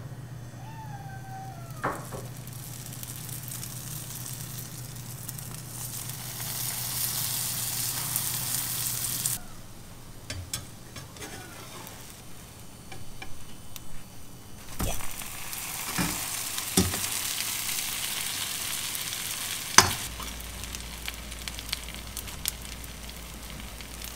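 Buttered sandwiches sizzling as they fry in a hot nonstick frying pan at medium heat. The sizzle stops abruptly and returns a few seconds later, joined by sharp clicks and knocks of a metal spatula against the pan as the sandwiches are lifted and turned.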